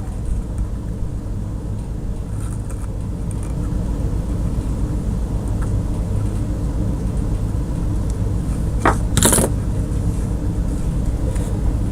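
Transformer soldering gun humming steadily with its trigger held while it heats a wire junction. Two brief scratchy noises come about nine seconds in.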